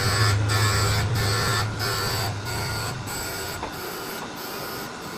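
A workshop machine running with a regular pulsing about every two-thirds of a second. Its low hum dies away about three seconds in and the sound winds down.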